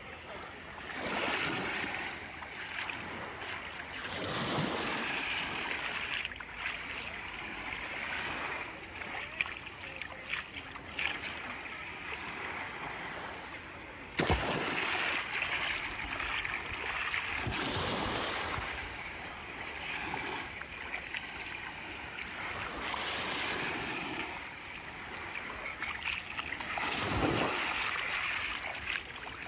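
Small waves breaking and washing up a sandy beach, swelling and falling every few seconds, with a sharp click about halfway through.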